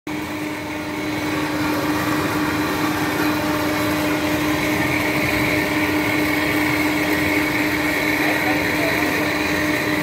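Steady drone of factory machinery: a constant low hum with a higher whine that grows stronger about halfway through.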